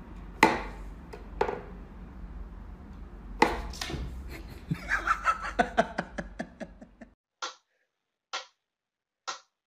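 Wooden whack-a-mole cat toy knocking and clattering as its pegs are pushed, with a quick run of clicks toward the middle. About seven seconds in it gives way to a pyramid-shaped mechanical metronome ticking, a little under one tick a second.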